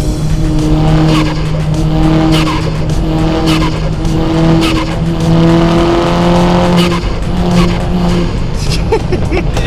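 A car driven hard: a loud engine and exhaust note held at a fairly steady pitch that breaks off briefly several times, with sharp clicks scattered throughout.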